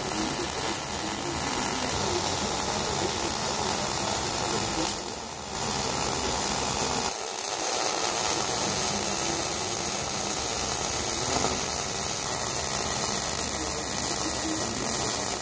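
Silicon bronze MIG welding arc on sheet metal: a steady hissing crackle, breaking off briefly about five seconds in and again about seven seconds in.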